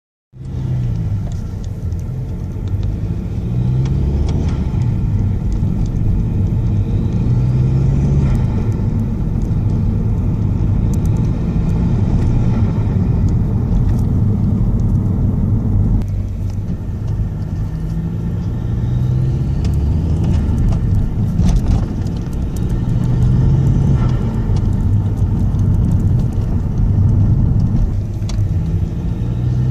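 Vectra C CDTi 150's 1.9 diesel with an open induction kit, running with a steady low rumble. The turbo whistle rises about four times, with the turbo fluttering through the induction kit.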